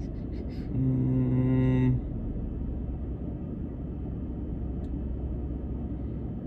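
A man's hummed "hmm" held on one flat pitch for about a second, starting about a second in, over a steady low rumble in the vehicle cabin.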